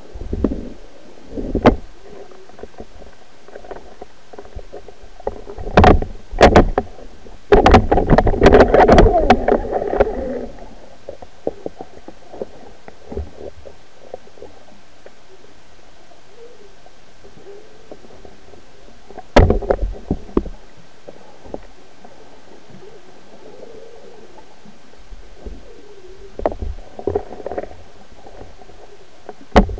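Underwater camera housing knocking and scraping against seabed rocks and kelp over a steady low underwater rumble. There are sharp knocks about six seconds in, a longer clattering scrape from about eight to ten seconds, another knock near twenty seconds, and a few lighter taps near the end.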